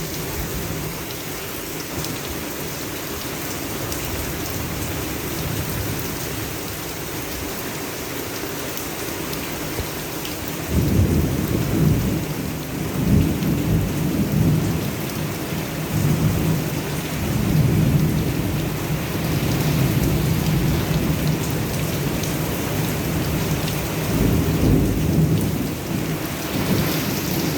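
Heavy rain pouring steadily, with rolling thunder rumbling in from about a third of the way in and going on in repeated deep swells.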